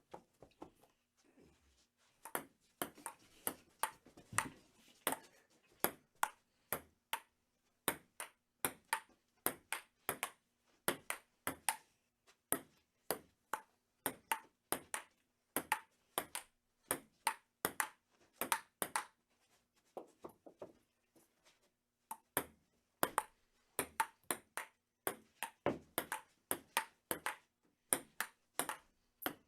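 Table tennis rally: a ping-pong ball clicking back and forth off paddles and the table, about two or three hits a second, with a couple of brief pauses.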